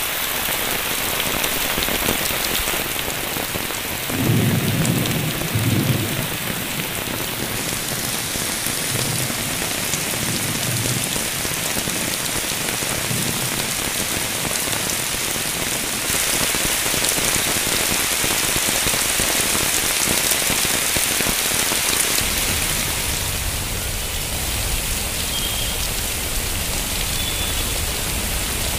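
Heavy monsoon rain falling steadily on a flooded street, a dense even hiss. A low rumble comes twice about four to six seconds in, and a low hum of traffic driving through the flood water joins in the last several seconds.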